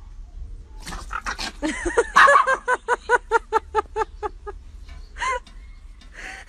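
An animal giving a rapid run of short, pitched calls, about four a second, then a single further call near the end.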